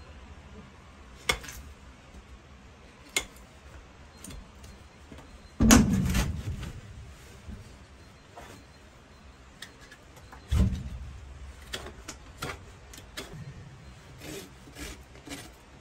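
Trimming a donkey's hoof: a few sharp snips of hoof nippers cutting the hoof wall, two heavier thumps about six and ten and a half seconds in, the first the loudest, then a run of short rasp strokes filing the hoof near the end.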